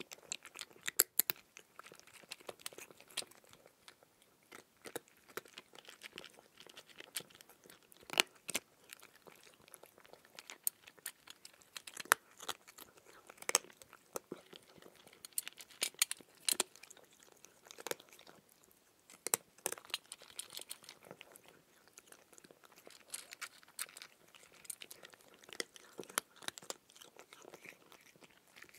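A person chewing raw cucumber: a steady run of irregular crisp crunches, with a few louder, sharper ones scattered through.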